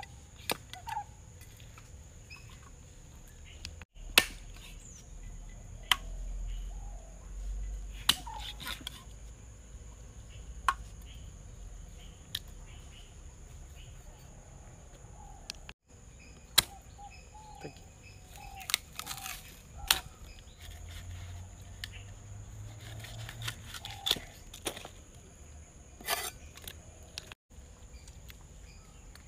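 A meat cleaver chopping raw chicken into pieces on a wooden log block: sharp single strikes every second or few seconds, sometimes two close together. Faint bird chirps sound between the strikes.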